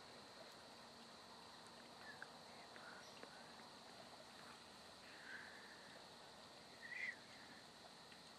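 Near silence: a steady faint hiss with a few faint, short bird chirps, the loudest near the end.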